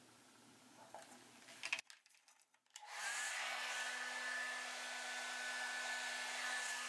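Hand-held hair dryer switched on about three seconds in, its motor pitch rising briefly as it spins up, then running steadily with a whine over rushing air. It is blowing wet acrylic paint across a canvas.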